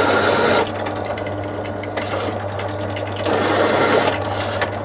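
Bench drill press motor running steadily while a countersink bit chamfers the holes in a cast-iron block, with two louder spells of cutting, one right at the start and one about three seconds in.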